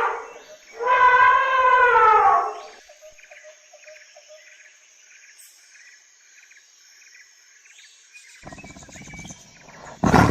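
A loud, drawn-out animal call, pitched and falling at its end, heard twice, followed by faint quick chirping of birds or insects. Near the end a low rumbling noise builds up and a loud roar begins.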